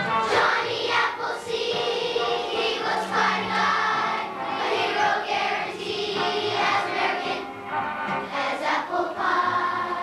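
Children's choir singing together on stage.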